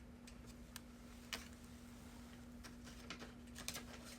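Faint handling of a bracelet's packaging and card: scattered light clicks and taps, bunching up about three to four seconds in, over a steady low hum.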